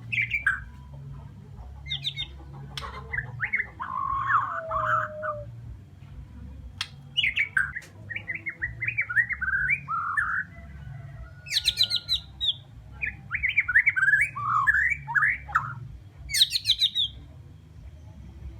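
Bornean white-rumped shama singing a varied song: clear whistles, some sliding down in pitch, fast runs of short rising notes, and a few rapid high chattering trills, over a steady low hum.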